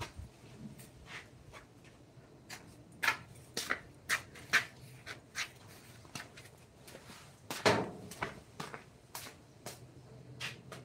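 Irregular light taps, clicks and scrapes of hand tools working on wood, a few a second, with a louder knock about three-quarters of the way through, over a faint low steady hum.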